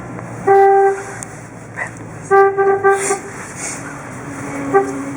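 1958 Chevrolet Bel Air's horn honking on its own as the steering wheel turns, because of faulty horn contacts in the steering wheel: one half-second honk, a stuttering run of short toots about two and a half seconds in, and a brief toot near the end, over the running engine. Near the end a steady groan from the power steering sets in.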